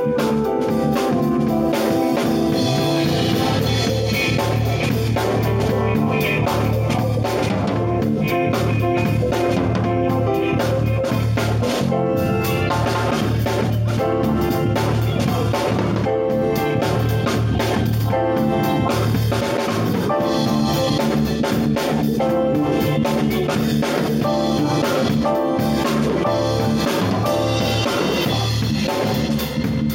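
Keyboard ensemble and drum kit playing a jazz-funk tune, continuous, with a steady beat.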